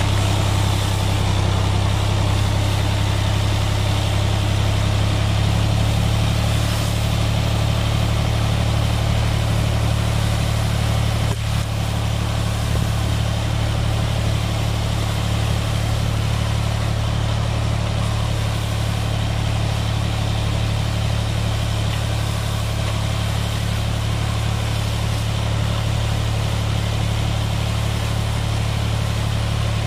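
Tractor engine running steadily while it drives a hydraulic in-row weeder cutting weeds and soil between grapevines.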